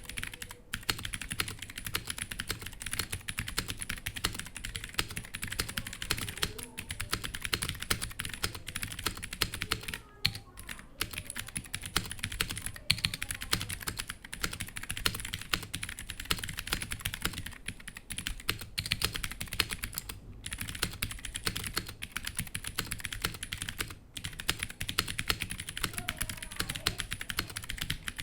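Fast, continuous typing on a Womier HS-K87 mechanical keyboard with clicky Gateron Blue switches and stock keycaps, sitting on a desk mat. Each keystroke clicks sharply, with brief pauses about ten seconds in and again near the end.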